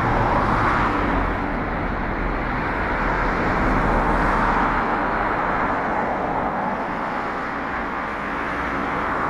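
Road traffic: a steady hiss of passing cars' tyres and engines, swelling slightly near the start and again about four seconds in.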